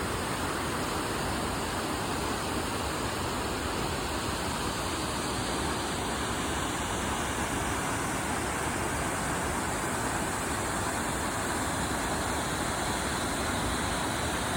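Steady rush of falling water at Bash Bish Falls, an even, unbroken noise.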